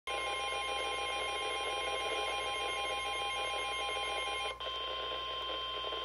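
NOAA Weather Radio's 1050 Hz warning alarm tone sounding steadily from a weather alert radio's speaker, signalling that a warning is about to be read. A second, pulsing tone plays over it and cuts off abruptly about four and a half seconds in, leaving the steady tone alone.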